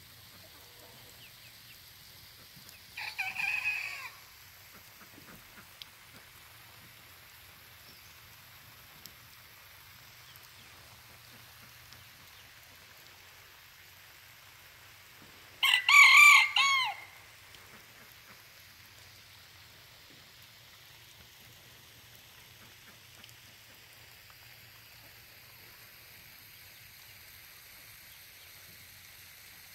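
Rooster crowing twice, about twelve seconds apart: a fainter, shorter crow about three seconds in, then a loud crow about a second and a half long.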